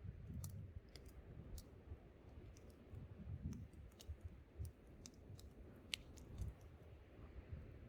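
Wood campfire crackling faintly, with scattered sharp pops (the loudest about six seconds in) over a low rumble of wind.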